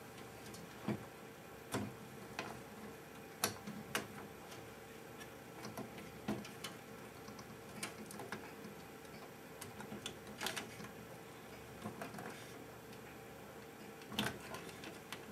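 Scattered light clicks and taps at irregular intervals, from hands working cable connectors, screws and metal parts inside the open chassis of a rear-projection TV, over a faint steady hum.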